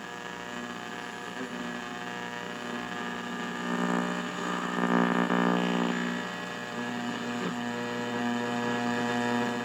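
Vintage Zenith tube radio's speaker giving a steady electrical buzz while its dial is tuned between stations. The buzz swells louder in the middle and then eases back.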